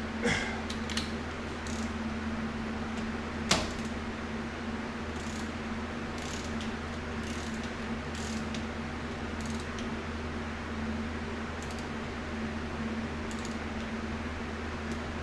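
Steady low hum of a workshop with a few light metallic clicks and clinks of tools and parts being handled, the sharpest about three and a half seconds in, then fainter scattered ticks.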